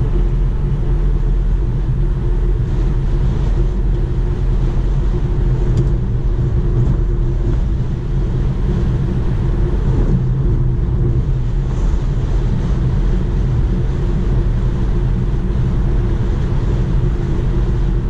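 Steady road and wind noise inside the cabin of a Tesla Model 3, an electric car with no engine sound, cruising at highway speed.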